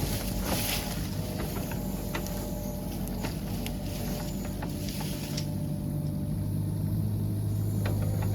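An engine running steadily with a low hum that grows louder about six seconds in, with a few scattered clicks and ticks over it.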